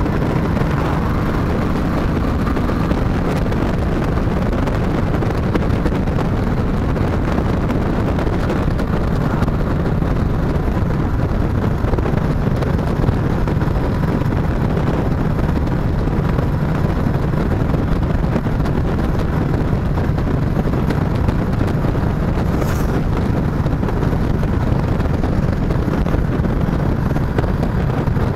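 Chopper motorcycle running steadily at cruising speed, with wind noise on the microphone.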